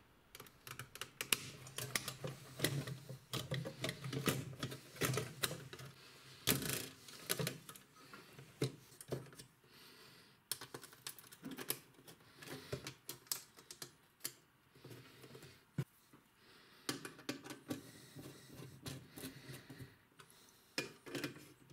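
Faint, irregular clicks, taps and light knocks of hands handling a printed circuit board and its wiring harness on a metal power-supply chassis, busiest in the first several seconds and sparser after.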